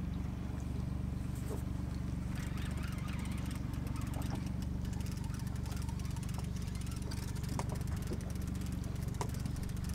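A small fishing boat's engine running steadily at low speed while trawling: an even low drone, with a few faint ticks over it.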